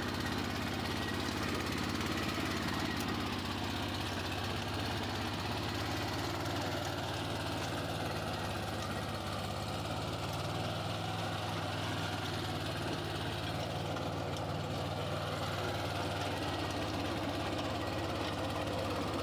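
Swaraj Code mini tractor's single-cylinder diesel engine running steadily at idle, with a low, even hum and a light diesel clatter.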